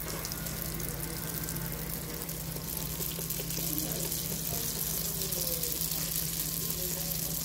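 Beignet dough frying in a pan of hot oil: a steady sizzle of bubbling oil, a little louder in the second half as more dough goes in, over a faint steady low hum.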